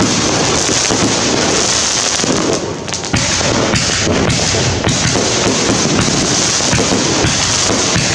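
Rooster Color 66-shot 2-inch consumer firework cake firing shot after shot in rapid succession: the aerial shells burst with booms and crackle, with a brief lull about three seconds in.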